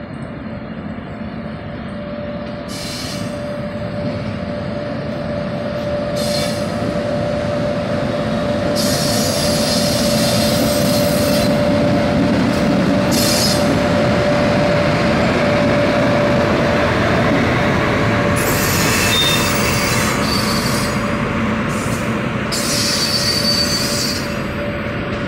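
WAP-5 electric locomotive and passenger coaches of an express train rolling slowly past as the train brakes into the station. The sound gets louder as the locomotive draws level, with a steady hum and high wheel and brake squeals that come and go several times.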